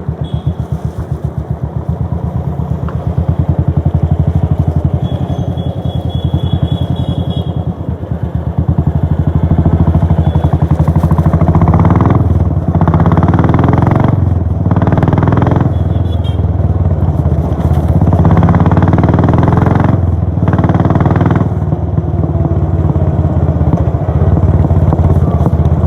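Royal Enfield Bullet 500's single-cylinder four-stroke engine, heard through its exhaust while riding, with a steady low beat at light throttle. About halfway in, the throttle opens in several louder surges, with brief dips in between as it is let off.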